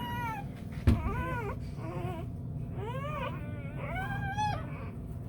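Newborn bluetick coonhound puppies squealing: about six short, high cries one after another, each rising and falling in pitch. A sharp knock a little under a second in.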